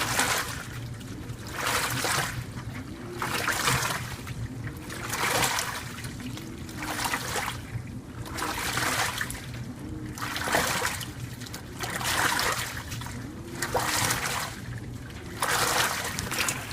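2012 LG WaveForce top-load washer agitating a load in water: the wash motor whirs up and back down with each stroke, and water swishes and splashes about every two seconds in a steady rhythm. A steady low hum runs underneath.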